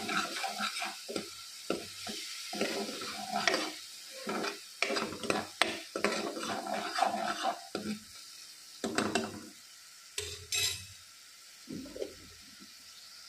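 A steel spoon stirring and scraping masala paste around a non-stick kadai while it sizzles as it fries, with small knocks of the spoon against the pan. The stirring thins out about two-thirds of the way through, leaving a few knocks over the quiet sizzle.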